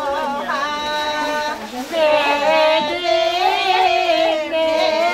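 A high voice singing a wavering, ornamented melody with vibrato; a short breath break comes just before two seconds in, and the singing is louder after it.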